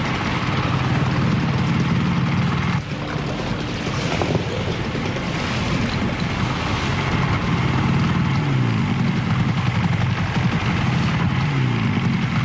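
A small motor boat's engine runs steadily over wind and sea noise. Its pitch drops briefly twice near the end as the throttle eases off.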